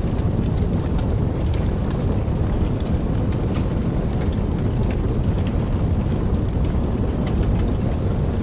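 Wood fire burning with a steady low rush and frequent small crackles and pops.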